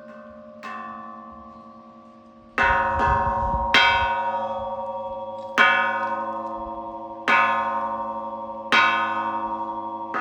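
A metal Buddhist temple bell or gong struck about six times, roughly every one and a half to two seconds. Each stroke rings on with bright metallic overtones and fades before the next. The first stroke is softer.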